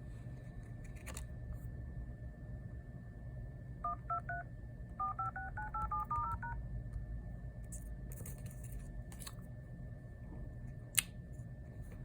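iPhone XS Max keypad tones as a number is dialled: three short dual-tone beeps, a brief pause, then about ten quicker beeps. A single sharp click follows near the end.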